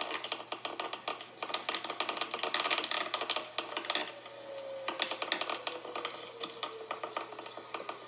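Dense, irregular crackling clicks throughout. Under them a distant outdoor warning siren is faintly heard as a single tone that falls slowly over a few seconds, from about halfway through, as it winds down or turns away.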